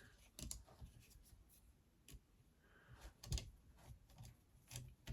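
Faint handling noises at a workbench: scattered light clicks and rubbing of small parts and wires being worked by hand, the loudest click about three seconds in.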